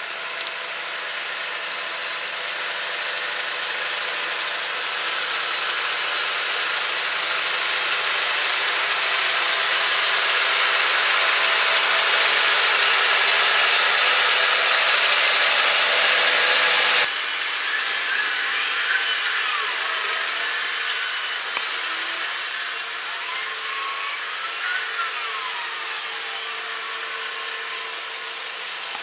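Tractor engine running steadily as it pulls a drag-hose slurry injector across grassland, growing louder as it comes close. About halfway through the sound cuts abruptly to the same work heard more quietly, from further off, with a few faint gliding whistles.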